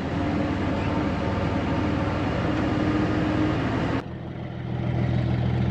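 Diesel engine of a 1999 Fermec TLK760 backhoe running steadily. About four seconds in, the sound cuts abruptly to a quieter, steadier low idle.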